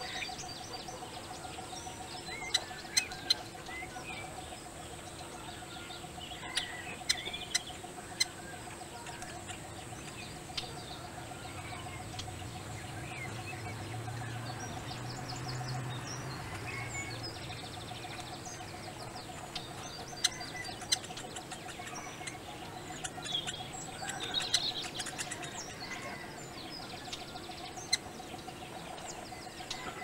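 Outdoor birdsong: scattered chirps and short calls from birds, with sharp clicks here and there, often in quick pairs or threes, over a steady faint hum.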